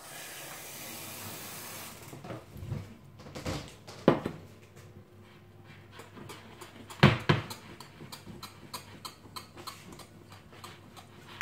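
Water running steadily for about two seconds, then two sharp knocks a few seconds apart, followed by quick repeated clinking of a utensil against a glass bowl as pancake batter is mixed.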